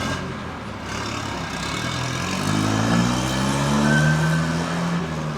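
Street traffic with a motor vehicle's engine close by accelerating: its pitch rises from about two seconds in, then holds steady until near the end.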